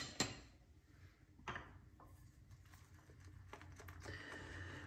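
Quiet small-room sound with a few soft knocks and clicks: a double knock at the start and another about a second and a half in, then a few fainter ticks.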